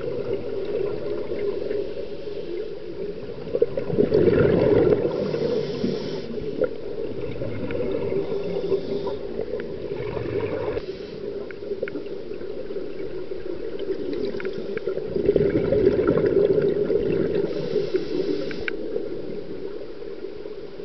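Scuba regulator breathing heard underwater: about three gurgling surges of exhaled bubbles some six seconds apart, with a brief higher hiss between them, over a steady watery rumble.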